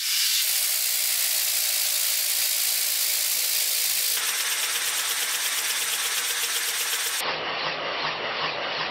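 3D-printed nutating-disk air engine running on compressed air: a steady hiss of air with a fast, even rattle from the wobbling disk. The sound shifts abruptly about four and seven seconds in. The engine runs with a cover printed too thin, so its rubber gasket flexes.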